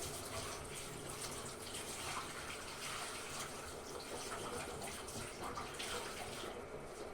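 Water running and splashing into the drum of a Hotpoint-Ariston AQ8L 09 U washing machine: a steady rush with small irregular splashes.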